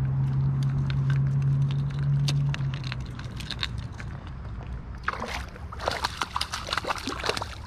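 A hooked brown trout thrashing and splashing at the surface from about five seconds in, in bursts, as it is forced toward the angler on a tenkara line. Under it a steady low hum fades out about two and a half seconds in.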